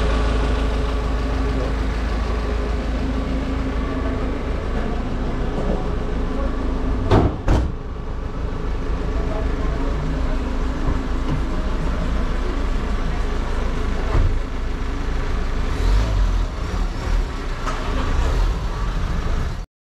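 Street noise dominated by a motor vehicle engine running steadily, a low rumble with a hum over it. Two sharp knocks come close together about seven seconds in.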